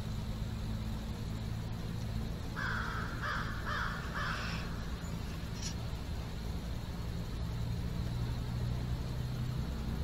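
A crow caws four times in quick succession about three seconds in, over a steady low rumble.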